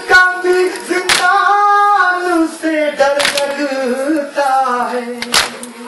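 A noha lament sung without instruments, the voices holding long notes and gliding down. Sharp slaps of hands striking chests in matam mark time every second or two.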